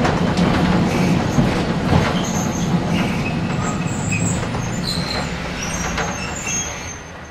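Street tram running on its rails, heard from inside the car: a steady low rumble of motor and wheels, with occasional sharp clicks over the track and brief high wheel squeals. The sound fades away near the end.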